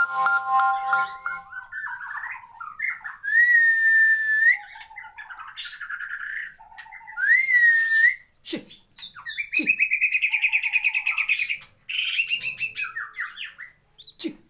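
White-rumped shama (murai batu) singing a varied song of clear whistled notes, up- and down-slurred phrases and harsher chatters, with a fast trill about ten seconds in. It is a complete 'isian' repertoire of learned phrases, as prized in contest birds.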